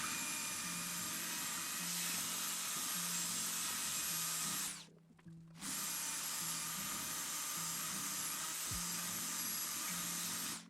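A power tool with a steady high whine sands a hole out to size, in two long runs with a short stop about five seconds in. Quiet background music plays underneath.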